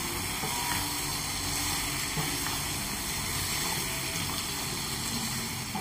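Cauliflower, carrot and potato pieces sizzling steadily in hot oil and masala in a kadhai, being sautéed and stirred with a silicone spatula.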